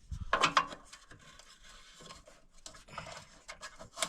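Handling noises at a furnace's door safety switch: a scrape-and-rub about half a second in, then scattered light clicks and scrapes as the switch and its cover panel are worked by hand.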